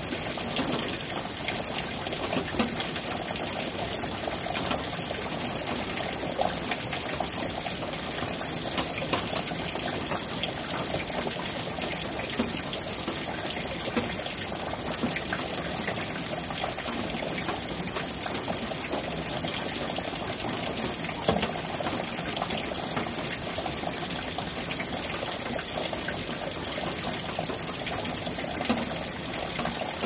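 Heavy rain falling steadily, with water running off overhead and dripping and splashing down close by, adding scattered small ticks of drops.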